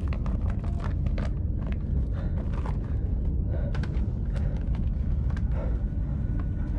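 Paper being handled and rustling, in scattered soft crackles, over a steady low rumble.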